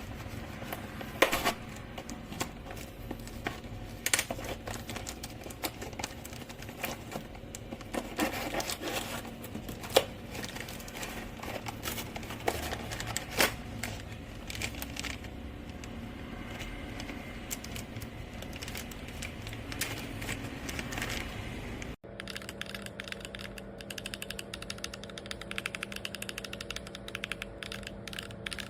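MMD Holy Panda V2 tactile mechanical keyboard switches clicking and clacking. At first the clicks come scattered and irregular; after an abrupt cut about three quarters of the way through, they become fast, steady typing on a keyboard.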